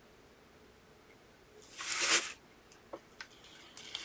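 A spatula or knife swiping fake frosting across the craft cake: one short scraping swish about two seconds in, then a few light clicks and taps.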